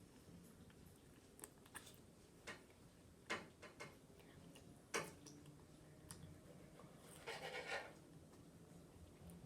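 Near silence broken by a few scattered light clicks and taps of small objects being handled at a table, with a short rustle about seven and a half seconds in.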